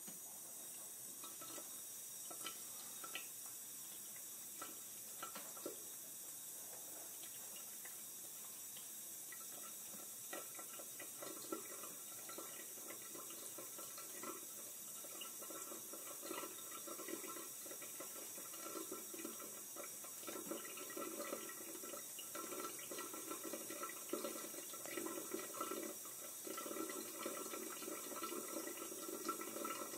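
A thin stream of water running from a kitchen tap into a stainless steel sink: a steady trickling splash with small drips and ticks, starting suddenly and growing a little louder and busier about halfway through.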